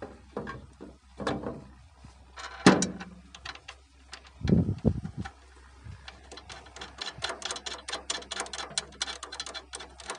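Handling noise from the oil tank of a DOL oil-immersed motor starter as it is pushed up and fitted under the starter body. There are scattered knocks and scrapes, a sharp knock about three seconds in and a dull thud a little later, then a long run of rapid small clicks and rattles.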